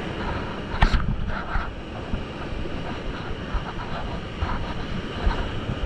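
Sea surf washing and churning over shore rocks, with wind buffeting the microphone. There is a single sharp knock about a second in.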